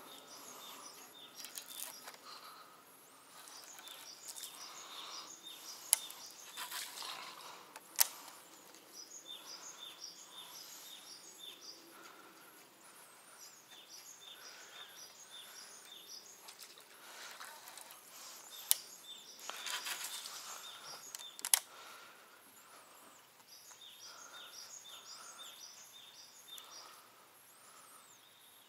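Songbirds singing in repeated short phrases of high chirping notes over a steady outdoor background. Four sharp clicks stand out, the loudest sounds.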